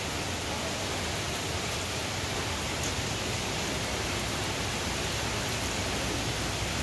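Steady rain falling: an even, continuous hiss that holds level throughout.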